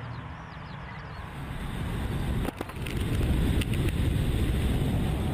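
Junkers Ju 52/3m's three radial engines droning on the landing approach, growing louder about two seconds in, joined by a low rumble and rushing noise as the aircraft comes down onto the runway.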